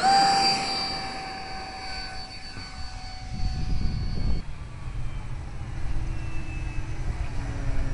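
Electric motor of an RC model airplane at full throttle, a steady high whine over wind rush, which stops at a sudden cut about four and a half seconds in. After the cut, a fainter, lower-pitched motor drone from model planes flying overhead, rising a little near the end.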